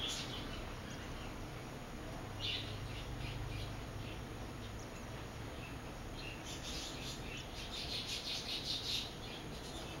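Purple sunbird at its nest giving high, thin chirps: a short burst about two and a half seconds in, then a quick run of chirps from about six and a half to nine seconds.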